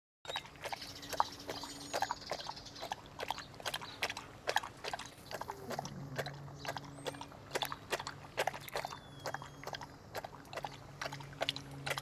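Basset hound lapping water from a stone birdbath: a steady run of short, wet laps, about three a second.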